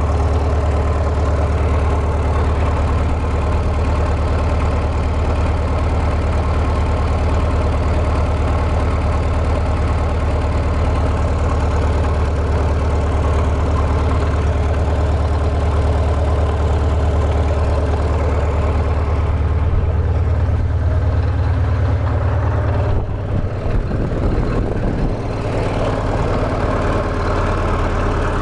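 Cat D315 four-cylinder diesel engine running steadily at a fast idle with no load, the welder generators disconnected, its cooling blower fan running with it. The tone shifts and dips briefly about three-quarters of the way through.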